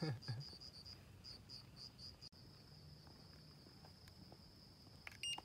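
Crickets calling at night: a high chirp pulsing several times a second, then a steady unbroken trill from about two seconds in. A brief low sliding sound comes at the very start, and a short electronic beep, from a handheld infrared thermometer, comes near the end.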